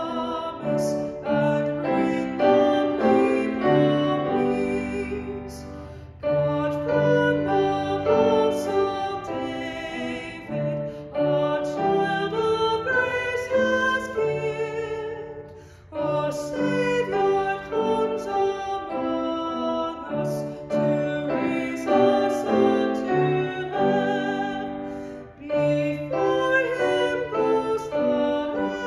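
A woman singing a solo with piano accompaniment, in phrases with brief breaks between them.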